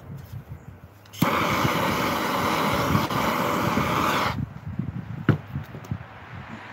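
Handheld propane torch on a green cylinder: its flame comes on suddenly about a second in, hisses steadily for about three seconds, then cuts off.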